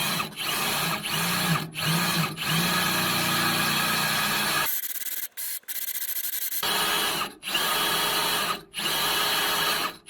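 Bauer power drill boring a hole, run in several bursts with brief stops between them. About halfway through, the heavy drilling sound gives way to a thin, high whine for about two seconds, then the drilling resumes.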